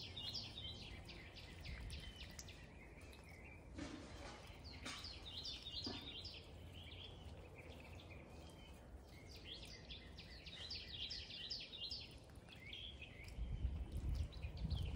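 A songbird singing short, repeated warbling phrases in several bursts, over a low rumbling background noise that swells near the end.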